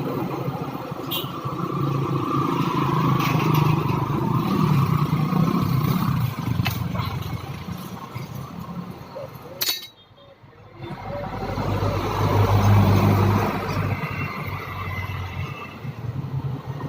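A motor vehicle engine running steadily, swelling and easing like passing traffic, with a sharp click about ten seconds in and a brief dip right after.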